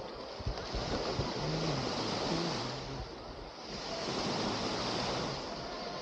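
Small waves washing up onto a sandy shore and running back, swelling twice.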